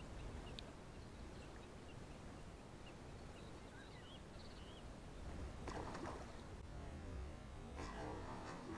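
Faint open-air ambience: a low, steady wind rumble on the microphone, a few faint, short bird chirps in the first half, and two brief noisy bursts about six and eight seconds in.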